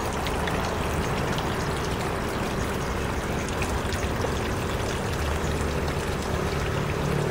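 Portable statue water feature running: water trickling and splashing steadily from its chute down into the bowl and basin.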